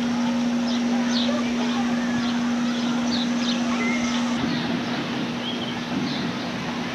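Small birds chirping repeatedly over an even outdoor background noise, with a steady low hum that stops about four seconds in.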